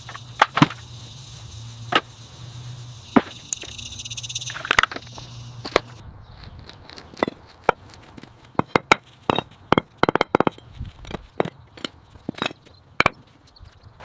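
Irregular sharp knocks and taps, like hand tools striking, many of them in the second half. A low steady hum with a higher hiss runs underneath for the first half, then stops suddenly about six seconds in.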